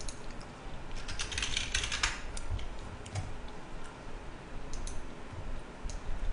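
Computer keyboard being typed on: a quick run of key clicks about a second in, then a few scattered single clicks.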